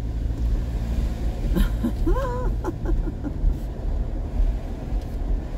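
Low, steady rumble of a Jeep's engine and tyres while driving slowly on a concrete street, heard from inside the cabin.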